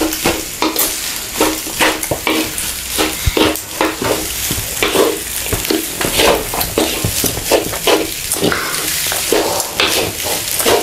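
Wooden spatula stirring and tossing fried rice with sausage in a hot metal wok: repeated scrapes of the spatula against the pan, several a second, over a steady sizzle of frying.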